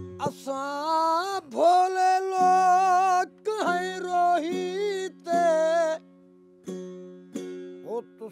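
A male folk singer sings long, wavering, ornamented phrases over a steady drone of plucked strings, with short breaks between the phrases.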